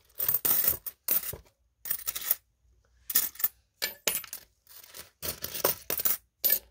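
Korean 500-won coins clinking against one another as they are slid and picked out by hand: about ten short bursts of metallic chinking with brief silences between.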